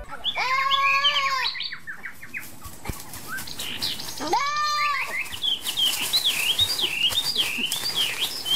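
A goat bleating twice, each call about a second long, near the start and again about four seconds in. A bird sings a high, rapid warbling song through the second half.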